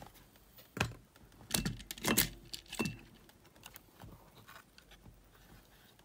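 Handling noise from an opened Sony WM-GX822 cassette Walkman: a run of sharp clicks and small rattling knocks as the mechanism chassis and board are turned in the hands, most of them in the first three seconds, then a few faint ticks.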